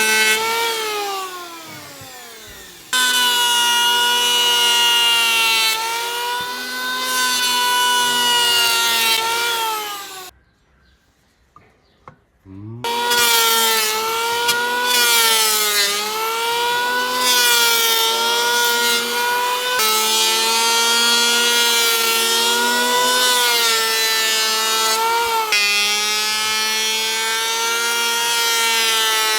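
Electric woodworking power tool running with a steady whine while cutting wood; its pitch sags and recovers as it takes load. Just after the start it winds down, it comes back about three seconds in, falls silent for about two seconds near the middle, then runs on.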